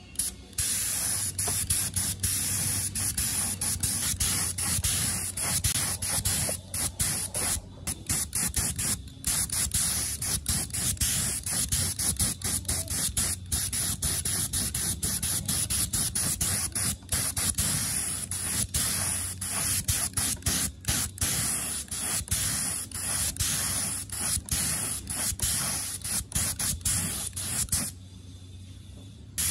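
Paint being sprayed: a steady hiss of spray broken by many brief gaps, stopping near the end.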